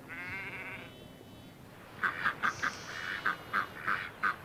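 A sheep bleats once, then from about two seconds in domestic ducks quack in a rapid, loud run of about four calls a second.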